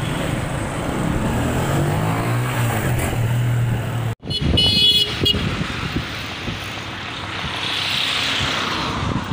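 Steady low engine drone of a motor vehicle. It breaks off suddenly about four seconds in, followed by road traffic noise and a short car horn toot.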